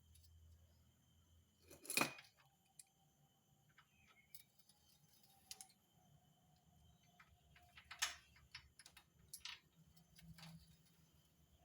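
Faint, scattered metallic clicks and clinks of parts and tools being handled, with two sharper clinks about two seconds in and about eight seconds in.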